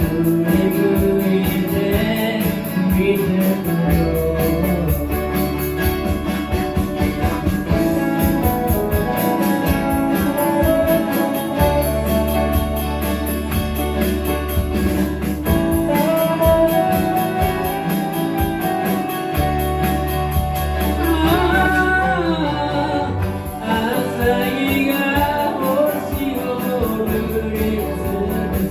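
Amateur live band playing a pop song, with a singer's voice over bass and other instruments.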